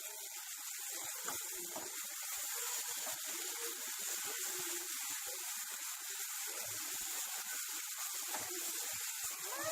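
Onion, ginger-garlic paste and chilli-powder masala sizzling steadily in hot oil in a pan while being stirred, with light scraping of the spoon against the pan.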